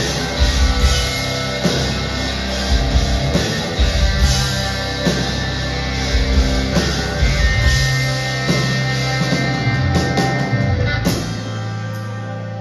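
A rock band playing live through a PA: electric guitar, bass and drum kit, with the drums hitting in a steady beat. Heard from the audience, it has a full, reverberant hall sound. Near the end the bass and drums drop out and the level dips slightly.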